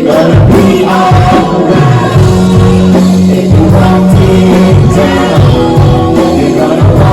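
Music with singing: a loud gospel-style song with a steady bass line and held sung notes.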